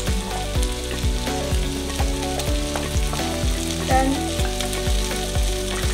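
Minced pork and chopped garlic chive stems sizzling in a wok as they are stir-fried, over background music.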